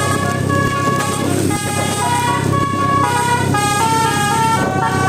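Bus 'basuri' telolet air horn playing a melody of held notes that step up and down every half second or so, often two notes at once, over the bus engine's steady low running.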